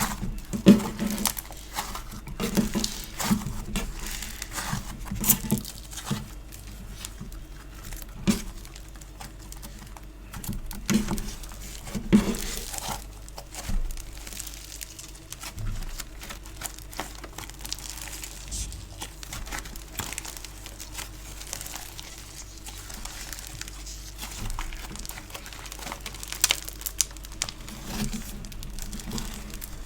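Soft sticky craft compound being squished, pressed and pulled apart by hand, making a dense run of small crackles and sticky pops. The strokes are louder and more spaced over roughly the first dozen seconds and turn into a softer, steadier crackle after that.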